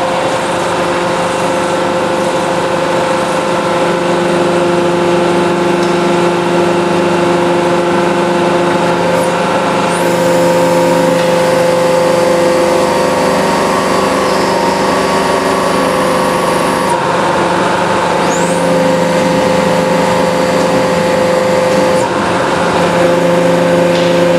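Hydraulic press's pump motor running under load as the ram presses down on plywood: a loud, steady hum made of several tones at once. A high hiss joins it partway through for about seven seconds.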